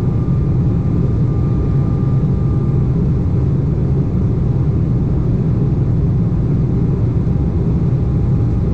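Steady cabin noise of an Embraer 190 jet airliner in flight: a dense low rumble of engines and airflow, with a faint steady whine, one tone of which drops away about three seconds in.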